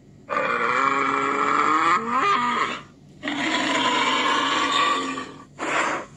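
Recorded bull bellowing, played through a device speaker: two long lowing calls of about two and a half seconds each, then a short breathy blast near the end.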